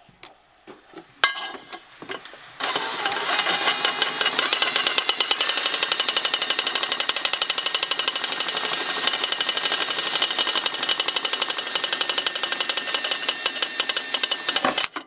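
After a couple of seconds of faint handling clicks, a cordless power driver runs for about twelve seconds with a fast, even rattling pulse, driving a metal screw through the parking brake cable bracket into the car's sheet-metal floor, then stops abruptly.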